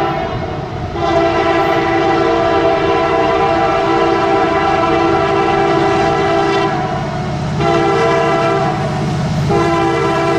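Norfolk Southern SD70ACC diesel locomotive's multi-note air horn played in a string of blasts. One long blast starts about a second in, then after a short gap come a shorter blast and another starting near the end, several notes sounding together as a chord.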